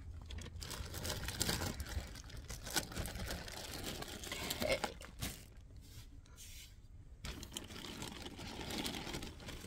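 Clear plastic bag crinkling and rustling as it is handled, with a short quieter lull a little past the middle.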